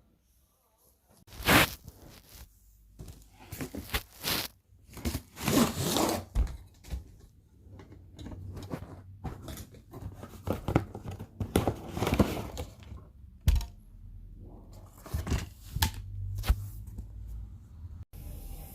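Irregular rustling, tearing and crinkling with scrapes and knocks as ring light parts and their packaging are handled, with a sharp knock about one and a half seconds in.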